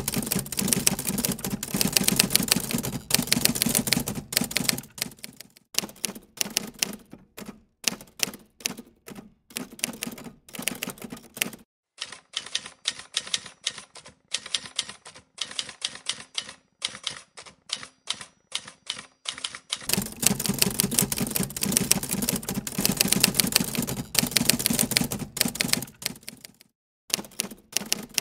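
Manual typewriter typing: keys clacking in fast, uneven runs broken by short pauses, sparser and thinner-sounding through the middle third.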